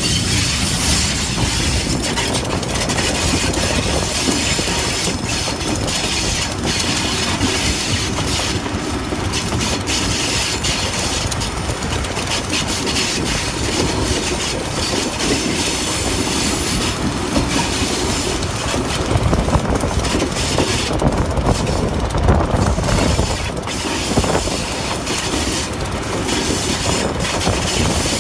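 Passenger train running along the track: a steady rumble of wheels on rail with many sharp clicks and clatter over the rail joints.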